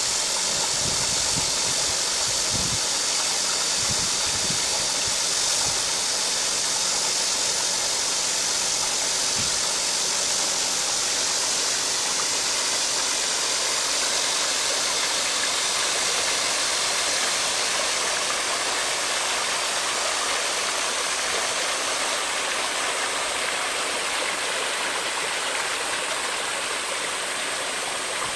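Fish-farm aerator running, churning and splashing water in a steady rush over a faint electric-motor hum. A few low thumps come in the first few seconds.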